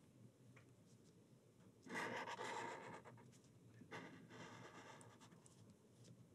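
Black felt-tip marker drawing on paper, a faint scratchy scribbling in two bouts, about two seconds in and again about four seconds in.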